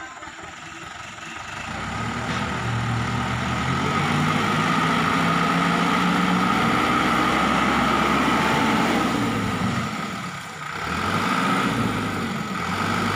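A loaded light dump truck's diesel engine revs up about two seconds in and holds at high revs to drive the hydraulic hoist while the tipper bed rises to dump its load. The revs dip briefly near the end, then pick up again.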